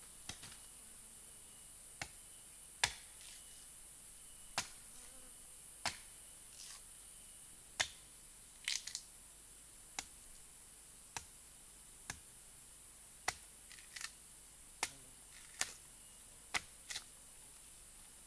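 A blade chopping into a tree trunk's bark, a sharp strike every second or so, some in quick pairs, over a steady high-pitched insect drone.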